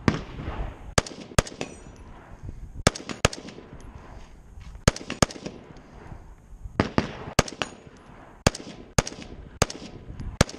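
Scoped semi-automatic rifle fired from the prone position in a fast string of single shots, about one to two a second, some coming in quick pairs, each crack followed by a short echo.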